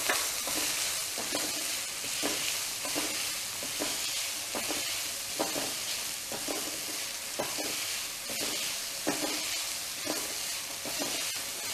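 Diced vegetables (carrots, beans and green peas) sizzling in oil in a wok, stirred with a spatula that scrapes and tosses them about once or twice a second over a steady frying hiss.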